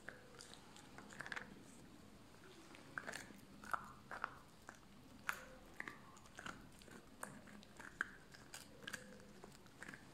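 Puppy gnawing on a bone: irregular sharp cracks and crunches of teeth on bone, a few each second, with wet chewing between them.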